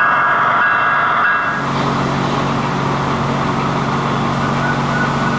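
HO scale model diesel locomotive's sound decoder playing diesel engine sound through its small onboard speaker, running steadily. About a second and a half in, the sound shifts from a higher whine to a lower, steady engine note.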